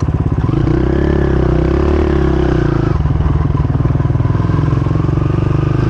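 Small motocross bike's engine running as it is ridden, at low revs at first, revving up about half a second in and easing off around three seconds, then back to low revs.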